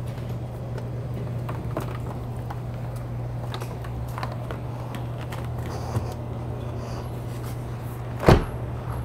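A car door on a BMW F20 shut with one loud thump near the end, over a steady low hum and faint clicks and rustles of handling.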